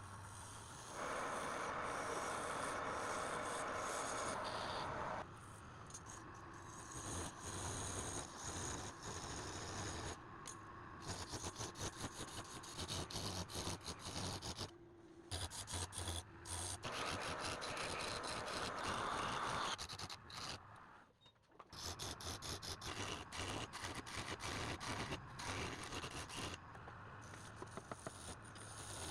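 Wood lathe running with a turning tool scraping against the spinning wood in passes of a few seconds that start and stop abruptly, over the steady hum of the lathe motor.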